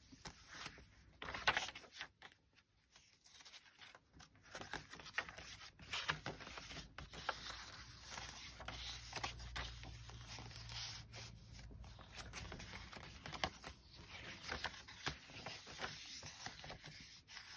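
Pages and inserts of a handmade paper junk journal being turned and handled: soft, irregular paper rustling with small ticks, and one louder rustle about a second and a half in.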